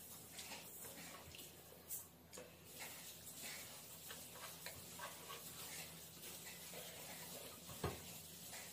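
Faint eating sounds: fingers mixing rice and curry on a plate, with many small clicks and taps. A sharper tap against the plate comes about two seconds in and another near the end.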